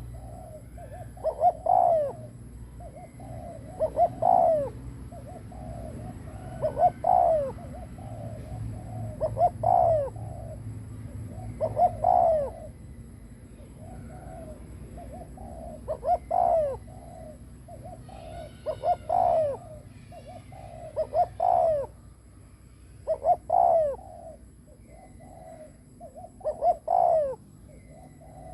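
Decoy spotted dove cooing its 'gù' coo, the call used to lure wild doves. Short low cooing phrases are repeated about every two seconds, each ending in a falling note.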